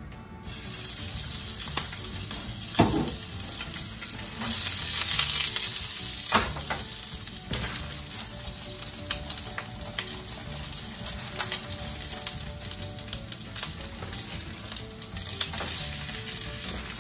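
Wiener sausages sizzling in hot oil in a frying pan on a gas stove, the sizzle starting suddenly about half a second in, with a few sharp clicks over it.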